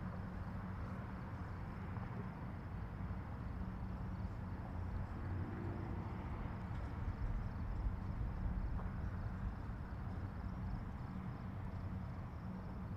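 Steady low drone of marine diesel engines, an even hum with a rumble beneath it.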